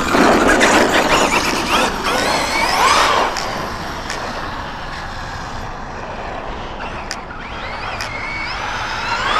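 Arrma Kraton 6S V6 RC truck's brushless motor whining up and down in pitch as the truck accelerates and slows, with tyre noise. The whine rises and falls several times over the first three seconds, goes quieter, then climbs again near the end.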